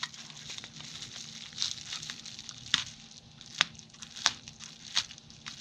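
Plastic packaging wrap crinkling and rustling as it is pulled off a small LCD screen by hand, with a few sharp clicks along the way.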